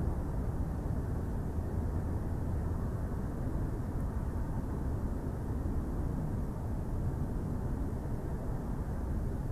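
Steady low rumbling background noise picked up by an outdoor nest-camera microphone, even throughout, with no calls or distinct events.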